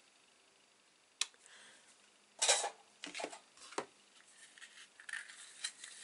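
Red-handled craft scissors handled and cutting ribbon: a sharp click about a second in, then a few short snips and clicks, the loudest about two and a half seconds in.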